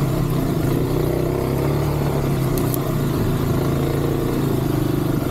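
Kawasaki KLX 300 dirt bike's single-cylinder four-stroke engine running steadily at low, even revs while riding a trail at walking-to-jogging pace.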